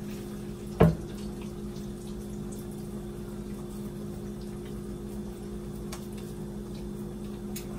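Crab cakes frying in a pan of oil, a steady sizzle over a low steady hum, with scattered small crackles and one sharp knock about a second in.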